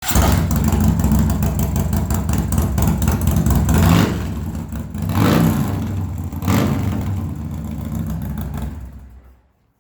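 Harley-Davidson CVO Limited's 117-cubic-inch Screaming Eagle V-twin running through a 2-into-1 Freedom exhaust, a deep rumble with the throttle blipped three times in the middle. The sound fades out near the end.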